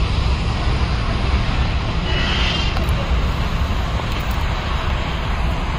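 Jet engines of a distant SriLankan Airlines airliner on the runway, a steady low rumble with no clear whine.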